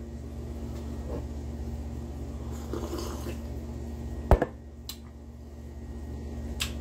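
A steady low hum, with one sharp click a little past four seconds in and two fainter ticks after it.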